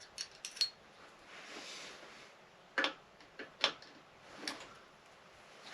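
Scattered sharp clicks and clinks of hand tools and metal parts being handled while a motorcycle engine is taken apart on a workbench, with a soft rustle in between.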